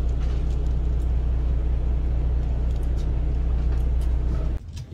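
A fishing boat's engine running steadily, a low, even drone; it cuts off suddenly near the end.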